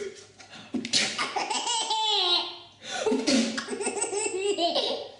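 A baby laughing hard in two long bouts, the first starting suddenly about a second in and the second starting just before the three-second mark; the laughter is set off by someone sneezing.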